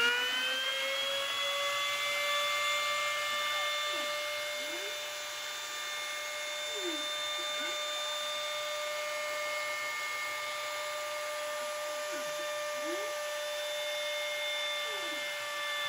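Trim router used as a CNC spindle running steadily at full speed with a high whine, switched on automatically by the relay module when the job was sent. Faint short rising and falling whines a few times, from the stepper motors moving the gantry through the test moves.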